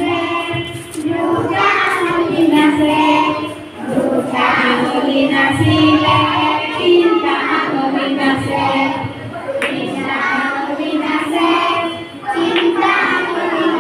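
A group of schoolchildren singing a song together in chorus, in phrases with short breaths between them.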